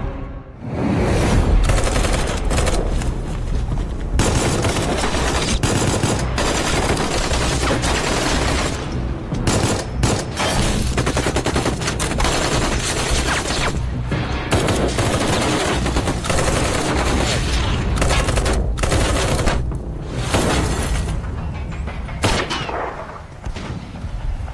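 Sustained volleys of automatic gunfire in a film battle soundtrack, the shots packed almost without pause, with a heavy low thud shortly after the start. The firing briefly thins about a third of the way in and again near the end.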